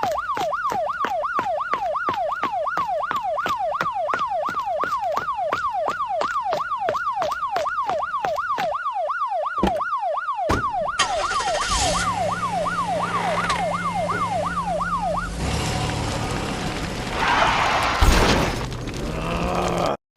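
Emergency siren in a fast yelp, its pitch sweeping up and down about two to three times a second. About 11 s in, a loud rumbling noise with a low hum joins it. The siren stops about 15 s in, and the rumble swells to a louder surge near 18 s.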